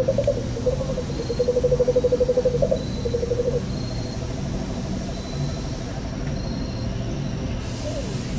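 Jungle-ambience effect track played through an area's loudspeakers: a rapid pulsing animal trill comes in loud bursts for the first three and a half seconds, then carries on fainter, with faint short high chirps repeating, over a steady low background hum.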